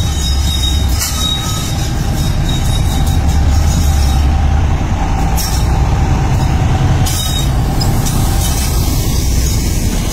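Goods train rolling past close by, first the locomotive and then its loaded hopper wagons, as a loud, steady deep rumble with a faint thin whine above it.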